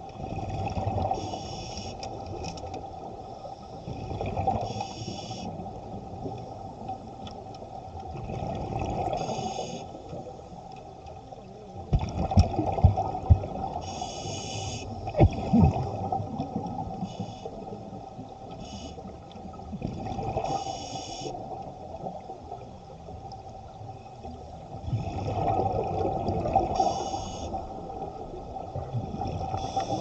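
Scuba diver breathing through a regulator underwater: a hiss on each inhale and a bubbling rumble on each exhale, about every five seconds. A few sharp low knocks come near the middle.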